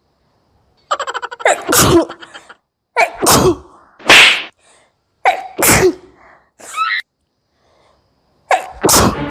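A woman sneezing over and over, five or six sneezes in a row with short pauses between them, set off by sniffing ground red chilli powder.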